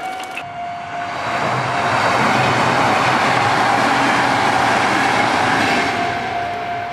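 A Kintetsu electric train passing over a level crossing: the rush of its running noise swells about a second in, stays loudest through the middle, then fades. The crossing's steady electronic warning tone keeps sounding underneath.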